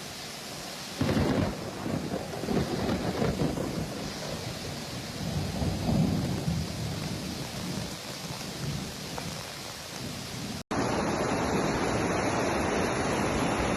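Rushing floodwater rumbling in irregular surges. About eleven seconds in, it cuts abruptly to a louder, steady rush of water.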